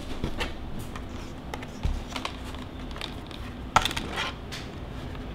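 Folding plastic panels of a mini photo studio box being handled and opened out: scattered light clicks, taps and short rustles, with a low thump just under two seconds in and a sharp click a little before four seconds.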